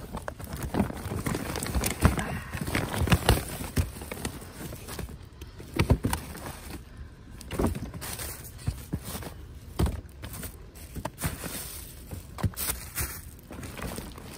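Hands rummaging through trash and loading items into a paper gift bag: paper and plastic rustling with irregular clicks and knocks as things are grabbed and dropped in.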